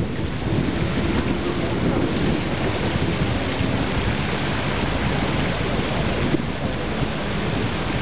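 Wind buffeting the camera microphone: a steady, dense rushing rumble with no distinct events.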